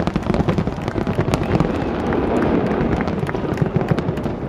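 Fireworks display: a dense, continuous run of overlapping bangs and crackling.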